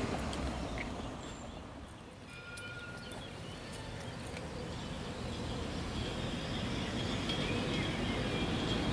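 A TFS tram moving near a stop, its low rumble growing steadily louder over the second half with a faint steady whine, over outdoor background noise and a few brief bird chirps.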